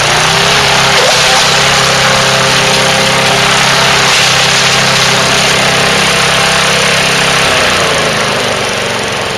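Craftsman gasoline push mower running under load as its blade shreds a plastic bottle: a steady engine note under dense, loud grinding noise that eases off near the end.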